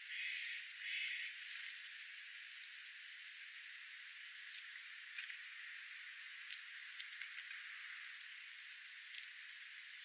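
A jay gives two short, noisy calls in quick succession at the start, then sharp little clicks of birds pecking at birdseed come here and there. A faint steady hiss runs underneath.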